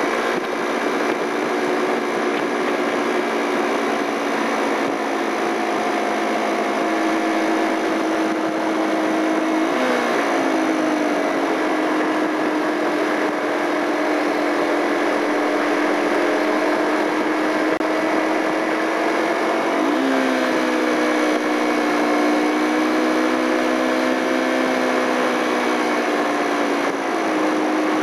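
Yamaha TW125's air-cooled single-cylinder four-stroke engine running steadily under way, over a constant rush of wind and road noise. Its revs dip briefly and pick up again about ten seconds in, again at about twenty seconds, and once more near the end.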